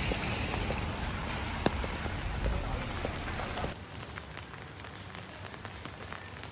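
Steady rain falling on hard surfaces, with scattered drops ticking close by. About four seconds in it drops abruptly to a quieter, thinner patter.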